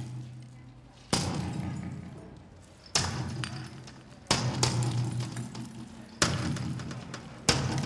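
Five sudden bangs, one every second and a half or so, each dying away slowly.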